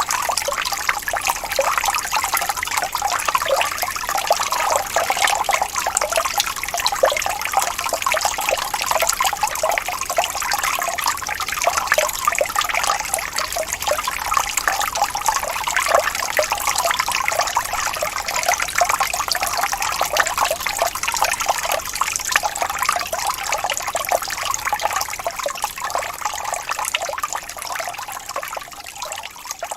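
Small waterfall: water splashing and trickling steadily in a dense, hissing rush, easing off slightly near the end.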